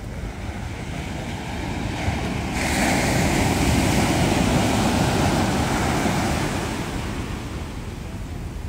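Ocean surf on a beach: a wave breaks about two and a half seconds in, and its rush of white water swells loud for a few seconds, then fades. Wind rumbles on the microphone throughout.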